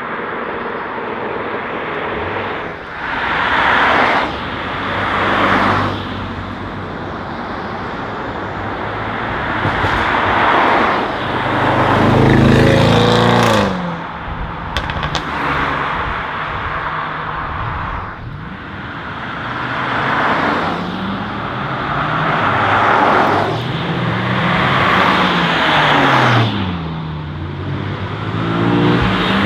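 Sports cars accelerating past one after another, engines revving up through the gears with the pitch climbing and dropping back at each shift. One loud pass comes about twelve seconds in, followed by a few short sharp cracks.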